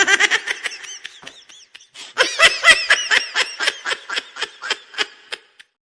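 High-pitched meme laughter sound effect: a quick burst of rapid 'ha-ha' pulses that fades, then a longer fit of laughter about two seconds in that trails off.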